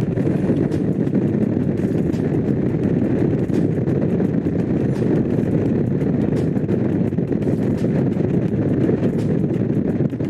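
Honda CX500 motorcycle's liquid-cooled V-twin engine running steadily while riding, at an even level throughout.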